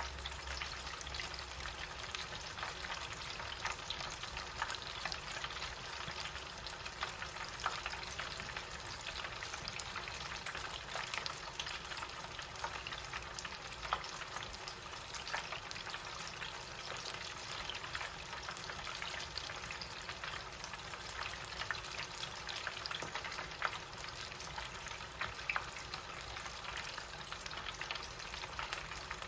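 Chicken deep-frying in hot oil in a small countertop electric fryer at about 375°F. It makes a steady sizzle dotted with many small crackling pops.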